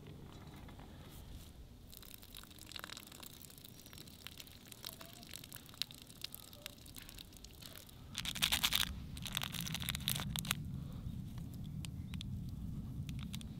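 Plastic packaging crinkling and tearing, with scattered small clicks and a louder rustling burst about eight seconds in. A low steady hum comes in at that point and carries on.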